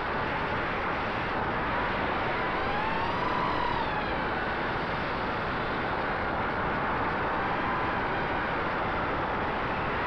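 Electric motor and propeller of a low-flying radio-controlled model aircraft: a steady airflow rush with a thin motor whine that rises and falls in pitch with the throttle, highest about three and a half seconds in.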